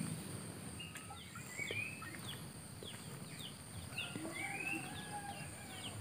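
Small birds calling in a morning garden: many short falling chirps and a couple of longer whistled calls, over a steady high-pitched hum.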